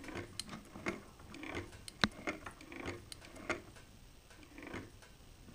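Singer 111W153 walking-foot sewing machine turned slowly by hand, its feed and presser-foot mechanism giving faint, irregular clicks and ticks, with one sharper click about two seconds in. The machine has a feeding fault: the material is not being walked forward.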